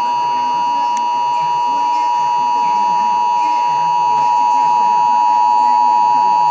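Emergency Alert System two-tone attention signal (853 and 960 Hz together) broadcast by a radio station during a monthly test: a loud, steady, unbroken dual tone with no change in pitch.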